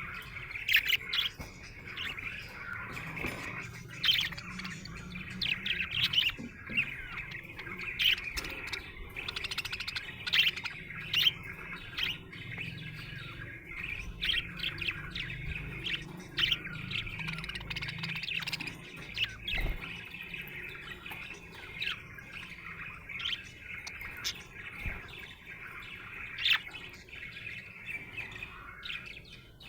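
Budgerigar chirping and chattering: a steady, busy warble with frequent short, sharp chirps on top.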